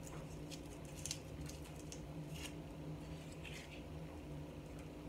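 Foil wrapper of a bouillon cube being peeled open by hand: faint, scattered crinkling rustles, several in a row.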